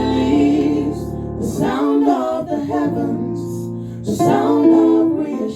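Worship song rehearsal: singing voices hold long, drawn-out phrases over sustained instrumental chords.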